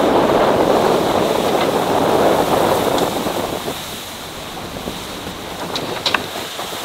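Rush and splash of water as a fast catamaran's bow cuts through a wave and throws up spray, loudest at first and dying down after about four seconds, with wind buffeting the microphone.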